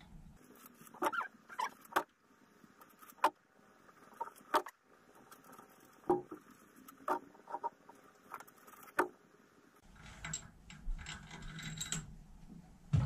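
Sharp metallic clicks and clinks, about a dozen at irregular intervals, from oiling head bolts with a squirt oil can and handling them over an open cylinder head. A low rumbling noise comes in for the last few seconds.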